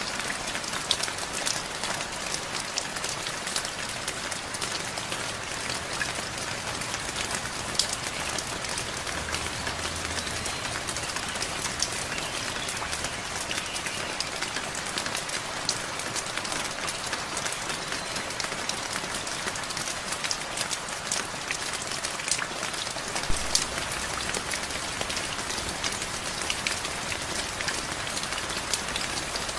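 Steady rain falling, with many individual drops pattering and ticking on a surface.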